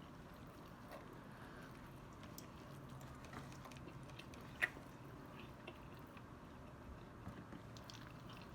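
Faint chewing and mouth sounds of people eating boneless hot wings, with scattered small clicks and one sharper click about four and a half seconds in.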